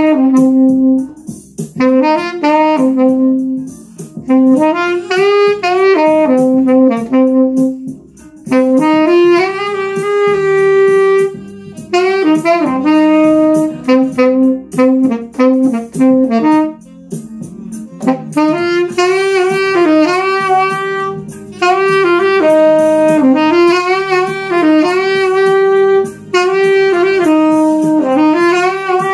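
Mendini by Cecilio nickel-plated B-flat tenor saxophone played in melodic phrases with short pauses between them, the notes sliding and stepping; the second half is one longer, busier run.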